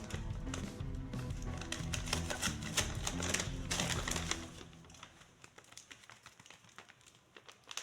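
Background music over rustling and light tapping of a handmade paper blind bag being handled and opened. The music drops away about halfway through, leaving only faint, sparse paper clicks.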